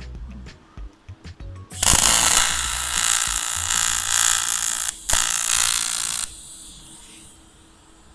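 Aluminium TIG (argon) welding arc from a Svarog 315 welder, joining a new tube section onto an air-conditioning condenser: a loud, steady hiss with a faint buzz that starts about two seconds in, breaks off for an instant near the five-second mark and resumes, then stops, leaving a fainter hiss that trails away.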